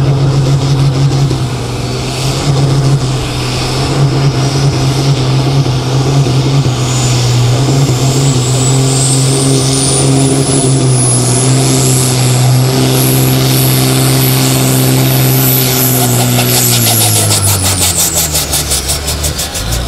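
Turbocharged diesel engine of a Ford Super Sport pulling tractor held at steady high revs at the start line while boost builds, with a turbo whine climbing to a high steady pitch. About three seconds before the end the whine falls and the engine note drops as the tractor takes up the load of the sled.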